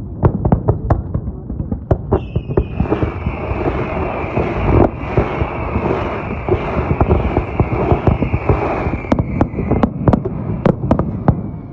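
Fireworks bursting in rapid, irregular bangs. From about two seconds in, a long high whistle with hiss runs under the bangs, falling slightly in pitch and fading out near ten seconds.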